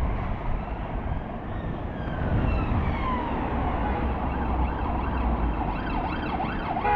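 An emergency vehicle siren sounds over a steady low engine and traffic rumble. It starts as a slow falling wail, then turns into a quicker rising-and-falling warble near the end.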